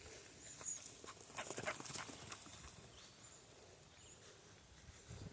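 Faint footsteps on a dirt trail: a string of light steps and rustles for about two and a half seconds, then quieter.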